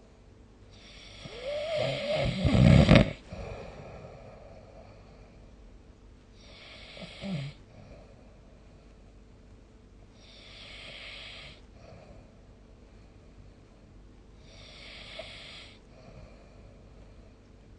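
A sleeping person snoring, about one breath every four seconds: a loud snore around two seconds in, a shorter snore near seven seconds, then two softer breaths without the snore.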